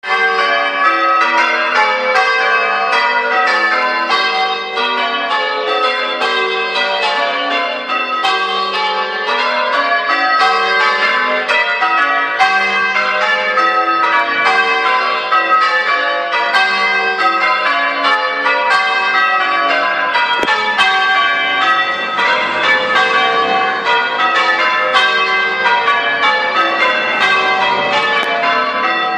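Church tower bells ringing changes: a steady, rapid succession of bell strikes overlapping one another, running on without a break.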